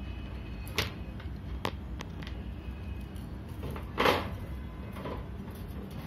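Fischer's lovebirds biting and gnawing a wooden perch in a wire cage: a few sharp clicks of beak on wood, then a louder, longer scrape about four seconds in.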